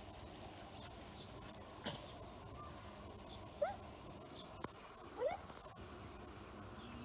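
Steady high-pitched drone of crickets or similar insects. About three and a half and five seconds in come two short rising squeals, the loudest sounds here.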